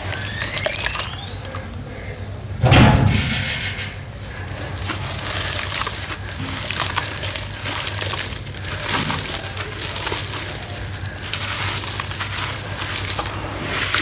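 Dry sawdust-and-sand chunks crumbling in water: a steady crackling, fizzing hiss as the pieces break up and soak through. About three seconds in there is one louder, deeper plunk.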